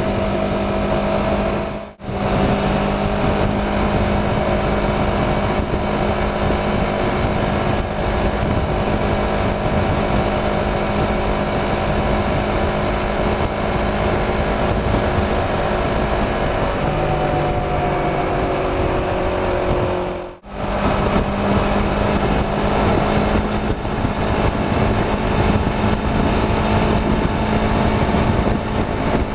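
Kawasaki Ninja 650's parallel-twin engine running steadily at motorway speed, with wind and road noise. The sound cuts out briefly twice, and after the second break the engine note is a little higher.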